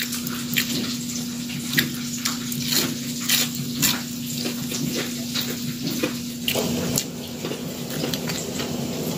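Crunching and crackling of a crispy breadcrumb-crusted fried tilapia fillet as it is broken apart and eaten: a run of irregular sharp crisp clicks. A steady low hum runs underneath.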